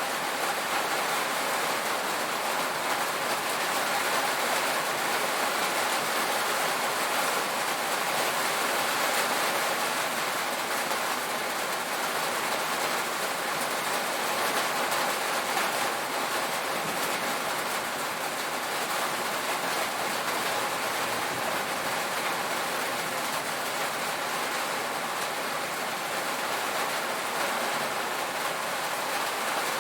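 Heavy rain drumming steadily on a tin roof, a dense, even hiss of countless drops without a break.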